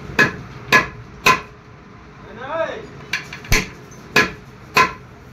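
Hammer riveting new brake lining onto a tractor's steel brake band: sharp metal-on-metal strikes, three in quick succession, a pause of about a second and a half, then four more.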